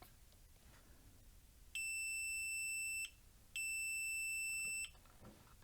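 Digital multimeter's continuity/diode-test beeper: two steady, high-pitched beeps, each a little over a second long with a short gap between, as the probes touch across components on the charger board. The beep is the meter's sign of a low-resistance path.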